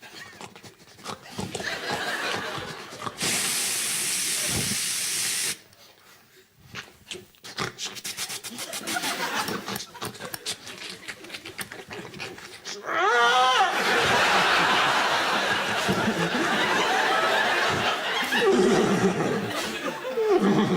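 Vocal sound effects made into a microphone: a steady hiss for about two seconds, scattered clicks, then a squealing animal-like call about thirteen seconds in. Sustained studio-audience laughter follows.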